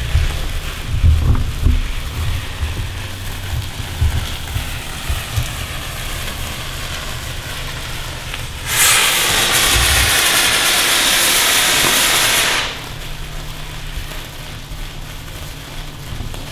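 A small firework fizzing as it throws sparks, then a loud hissing spray for about four seconds, starting a little past halfway, that cuts off abruptly.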